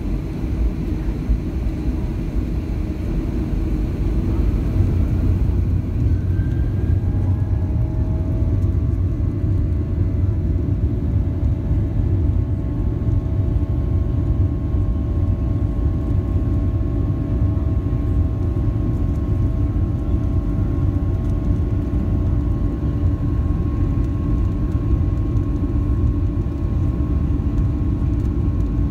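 Boeing 737-700's CFM56-7B turbofan engines, heard from the cabin over the wing, spooling up to takeoff thrust: several whines rise a few seconds in and then hold steady over a heavy low rumble as the aircraft accelerates down the runway.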